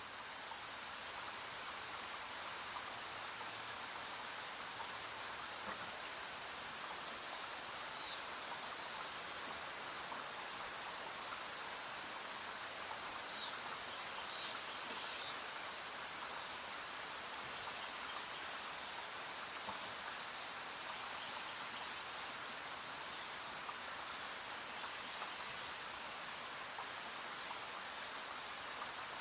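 Steady, even hiss like falling rain, with a few short high chirps about seven seconds in and again around thirteen to fifteen seconds.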